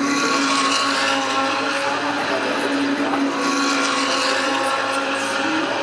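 GT race car engines running at speed on the circuit, a steady, held engine note.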